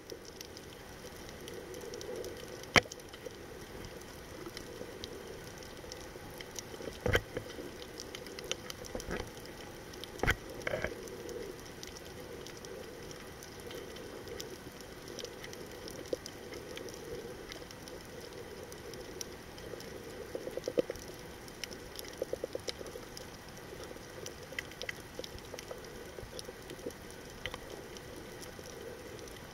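Underwater reef ambience: a constant crackle of faint clicks, typical of snapping shrimp, over a steady low hiss, with a few louder sharp knocks and two short rapid rattles about two-thirds of the way through.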